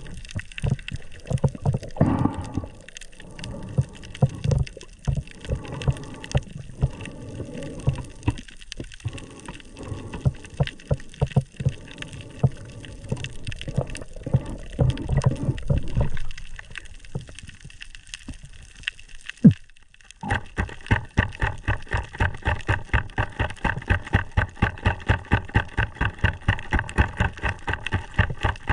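Underwater water noise picked up through a camera's waterproof housing: irregular low thumps and swishes from the water moving around it. About two-thirds in, after a brief lull and a single sharp click, it gives way to a steady pulsing about four times a second with a faint steady whine.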